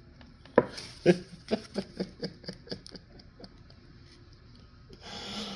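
Pokémon trading cards being handled and flicked through by hand: a run of about a dozen light card clicks, roughly four a second, fading out about three and a half seconds in.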